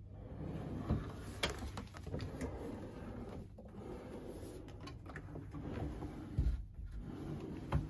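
Wooden wardrobe drawers being slid open and shut by hand, with several soft knocks and rubbing sounds, over a low steady hum.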